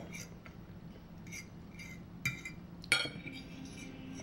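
Cutlery clinking against a plate or dish during a meal: a few light, separate clicks, with one sharper clink about three seconds in.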